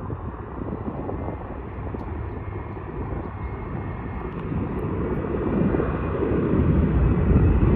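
Distant jet airliner rumbling as it moves along the runway across the water, growing steadily louder over the last few seconds.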